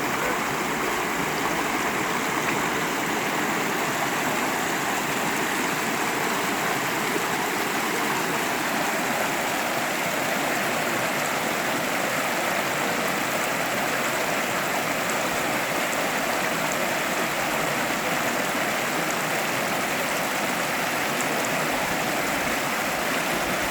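Mountain river rushing and splashing over rocks, a steady, full rush of water that does not change.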